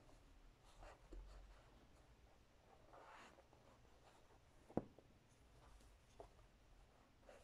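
Faint rasp of embroidery thread and needle being drawn through cotton fabric stretched taut in a hoop, in a few soft swishes, with one short sharp click a little before five seconds in.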